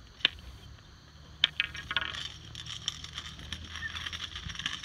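A white cane's tip hitting a concrete sidewalk: two sharp taps about a second apart, then a steady light rattling and clicking as the tip sweeps along the pavement.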